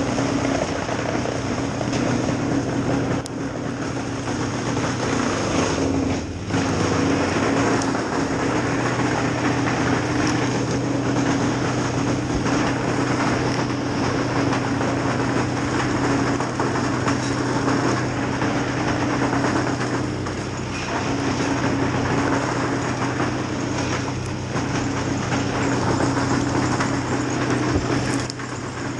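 An engine running steadily, with a short dip about six seconds in.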